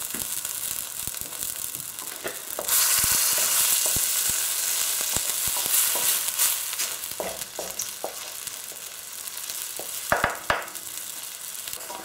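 Curry paste sizzling in hot oil in a stainless steel wok, stirred with a wooden spoon, with scattered light taps and clicks. The sizzle gets louder about three seconds in and eases off again a few seconds later.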